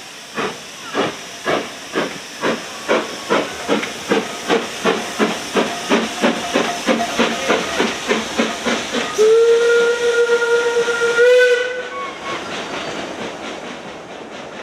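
Narrow-gauge steam tank locomotive pulling away with its train: sharp exhaust beats quicken from under two to about three a second. The steam whistle then sounds one steady note for about two seconds, and the coaches roll past, fading away.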